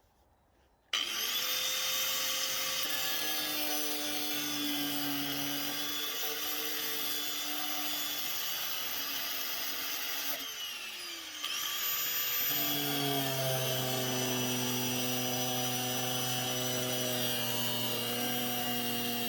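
Angle grinder cutting rusted steel out of a car's floor pan. It starts about a second in with a quick rising whine and runs steadily, winds down around ten seconds in, then starts again and runs on.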